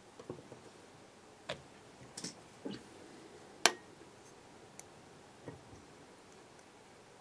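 A handful of small clicks and taps from fly-tying tools being handled and set down at the vise while UV resin is put on and a UV torch is brought up, with one sharp click about three and a half seconds in.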